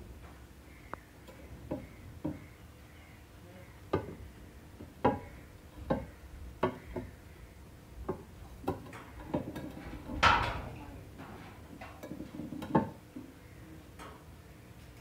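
A seashell knocking and clicking against a glass shelf as it is handled: about a dozen irregular hard taps, with one longer scrape about ten seconds in that is the loudest.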